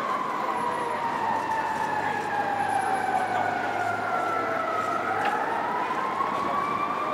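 Emergency vehicle siren wailing: one slow sweep falling in pitch over about five seconds, then rising again near the end, over steady background noise.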